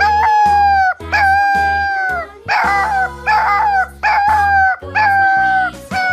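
A puppy howling in a string of high-pitched long calls, about one a second, each dropping in pitch at its end, over background music.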